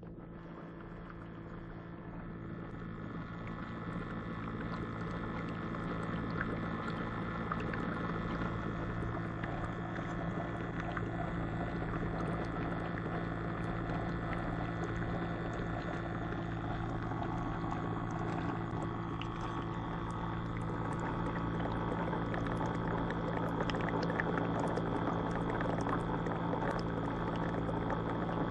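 Water bubbling and churning in a model live-fish tank, building up over the first few seconds and then holding steady, over a steady low hum.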